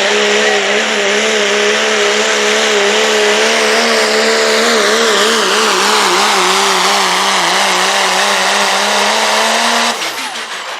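Turbocharged diesel pickup truck engine held at full throttle while pulling the sled, its pitch wavering under load, with a high whine above it. About ten seconds in, the throttle comes off and the engine note falls away suddenly.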